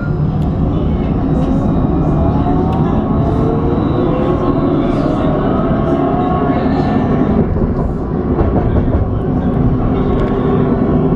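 Alstom Citadis 302 tram heard from the driver's cab, running on rails with a steady rumble; a whine from the traction motors rises in pitch over the first several seconds as the tram picks up speed.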